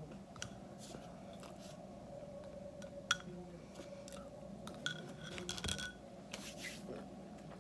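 A utensil scraping and clinking against a bowl of rice as someone eats, in scattered light clicks, the loudest about three seconds in, over a faint steady hum.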